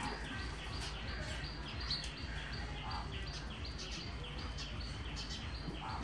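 Small birds chirping, many short repeated chirps several times a second, over a steady low background rumble.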